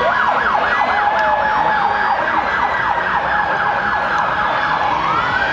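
Police van siren in fast yelp mode, sweeping up and down about four times a second, switching near the end to a slow rising wail.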